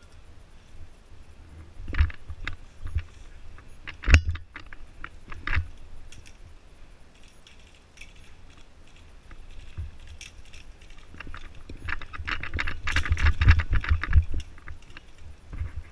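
A player's footsteps and rattling gear while moving on gravel and dirt: a few separate knocks and thumps in the first half, then a thick run of crunching steps and jingling kit near the end.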